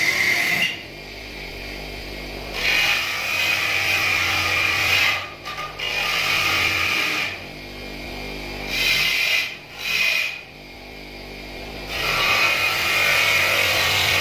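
Electric bench motor spinning a polishing wheel, with a rasping grinding noise in repeated spells as a metal motorcycle mudguard is pressed against the wheel, and a quieter steady motor hum in between.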